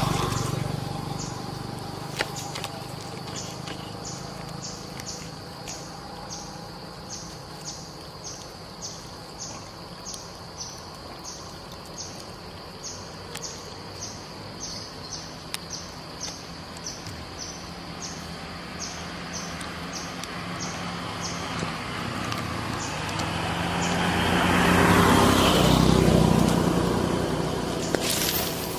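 A vehicle passes on the road, swelling and fading about three quarters of the way through. Before it, a high, short chirp repeats about twice a second for most of the first twenty seconds.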